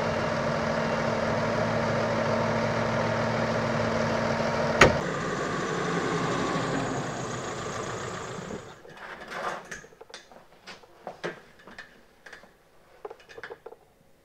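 Fendt tractor's diesel engine running steadily, with a sharp click about a third of the way in. The engine sound stops about two-thirds of the way in, leaving faint scattered clicks and knocks.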